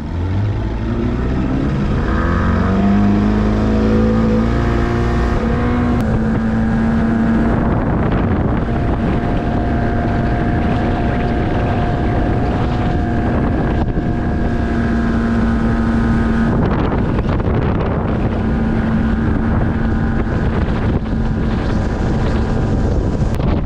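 Outboard motor on a 1998 Ranger bass boat, running well on a freshly rebuilt carburetor and new spark plugs. It revs up under throttle over the first few seconds, its pitch rising, then runs steadily at speed, with wind buffeting the microphone.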